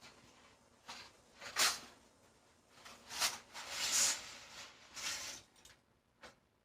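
A series of short rustling and scraping handling noises, five or so separate bursts, the loudest about one and a half seconds and four seconds in.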